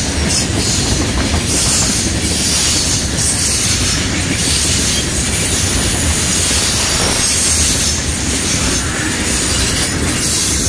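Freight cars rolling past at close range: a steady, loud rush of steel wheels on rail, with hissing high-pitched noise that swells and fades every second or so.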